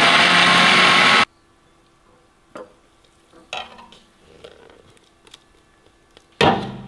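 Countertop electric blender running, grinding a wet spice paste, then switching off abruptly about a second in. After it come soft knocks and scrapes as the thick paste is tipped and scraped out of the jug, then a sudden loud clatter near the end.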